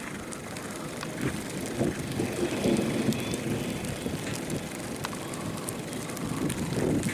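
Steady rushing noise of wind and rain from a thunderstorm, with a few scattered sharp ticks.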